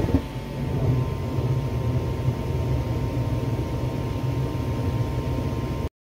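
An older furnace's blower starting with a click and then running with a steady low hum. The sound cuts off abruptly near the end.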